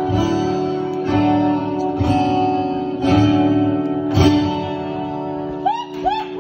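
Acoustic guitar strummed chords, a fresh strum about once a second, as the song's instrumental ending after the last sung line.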